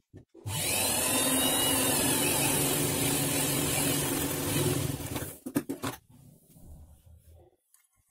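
Sewing machine running steadily for about four and a half seconds, stitching a seam through blouse fabric and its lining. A few sharp clicks follow as it stops.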